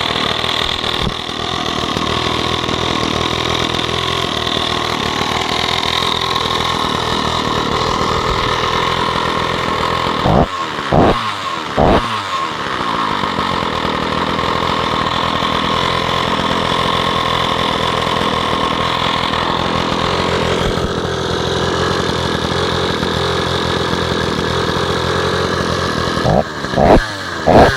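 Stihl 045 AV 80 cc two-stroke chainsaw engine running on its first start after a new piston and rings, idling steadily. About ten seconds in it is blipped to high revs three times in quick succession, and it is blipped again several times near the end.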